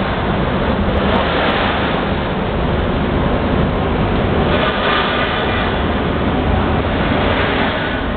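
Steady, loud rumbling drone of ship and dockside machinery. No clear rhythm or tone stands out.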